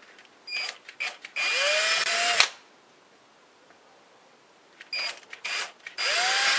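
Cordless drill boring screw holes through a plastic trim panel, in two bursts. Each burst starts with a few short trigger blips, then the motor spins up with a rising whine for about a second and cuts off suddenly.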